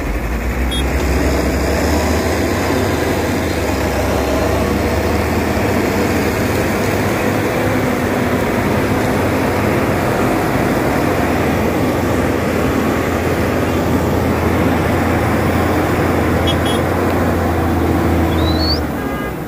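Heavy diesel engines of a tractor and a loaded Volvo truck running steadily under load while the truck is pulled out of boggy ground. The engine sound eases off just before the end.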